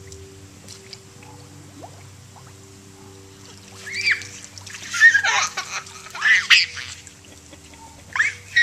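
Young children squealing and shrieking in short, high-pitched cries as they run through a lawn sprinkler, starting about four seconds in and again near the end. A steady low hum runs underneath.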